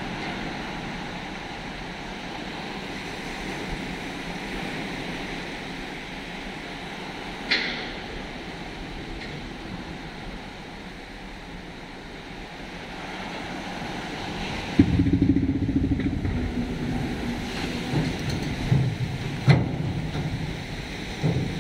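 Shallow surf washing over the mud shore against the beached tanker's hull, a steady noisy rush. About fifteen seconds in, a louder low rumble with a steady hum joins it, along with a few sharp knocks.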